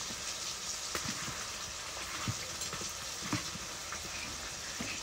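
Fish pieces frying in oil in a black iron kadai over a wood fire: a steady sizzle, with a few faint clicks.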